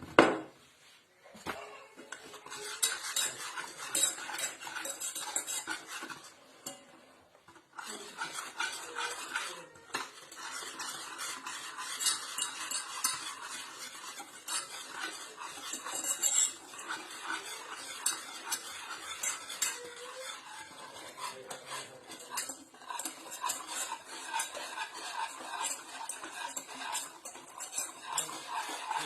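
A spoon stirring and scraping in a pot or bowl with steady clinking, most likely chocolate being stirred as it melts. It opens with one sharp knock.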